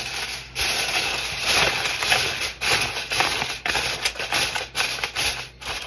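Aluminium foil crinkling as it is pressed and crimped down over the rim of a disposable aluminium baking pan: a dense run of sharp crackles.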